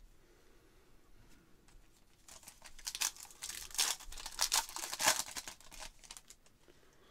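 Foil wrapper of a 2023 Stadium Club baseball card pack being torn open and crinkled by hand. The crinkling starts about two seconds in, is loudest in the middle, and dies away about a second before the end.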